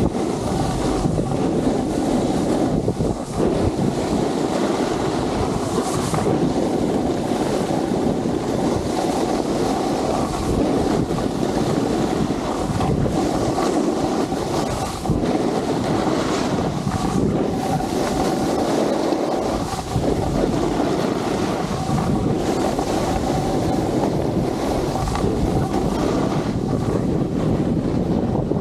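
Steady wind rush buffeting an Insta360 action camera's microphone on a fast downhill ski run, mixed with the hiss of edges carving over snow.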